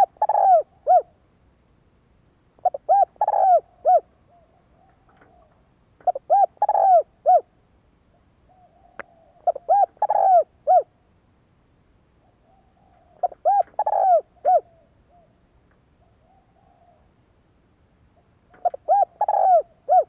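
Spotted dove cooing: six phrases, three to five seconds apart, each a few short coos around one longer, louder coo, with softer cooing between the phrases.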